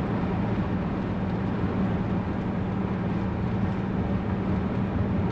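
2018 Coachmen Leprechaun Class C motorhome cruising at highway speed, heard from inside the cab: a steady low engine drone with tyre and road noise.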